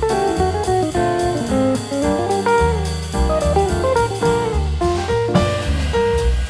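Jazzy background music: a plucked guitar melody over a bass line and light drums.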